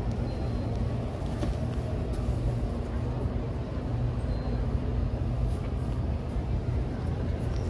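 Steady low hum and rumble of a large indoor exhibition hall, with faint indistinct voices in the background.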